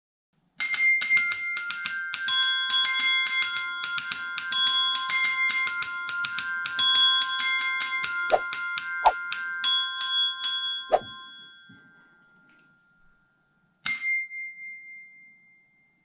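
Desk bells struck rapidly by hand, playing a quick ringtone melody of bright ringing notes that die away about twelve seconds in, with a few soft knocks among the last notes. Near the end, one more bright ding rings out and fades.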